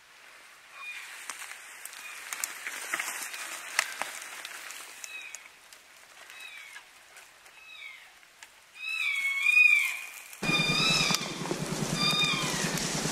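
Electronic predator game call playing a string of short, falling, cat-like meowing cries, repeated over and over and much louder from about nine seconds in. A few snaps and rustles of brush come in between.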